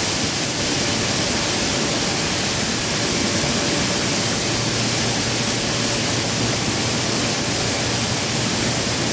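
Steady loud rushing noise of a large fire burning at a steel rolling mill line, heavy in hiss. A low machine hum joins about halfway through.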